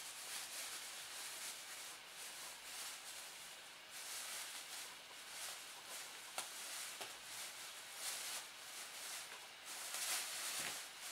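Thin plastic bag rustling and crinkling in uneven bursts as a kitten pushes its head into it and shifts and paws on it, with one sharp click about six seconds in.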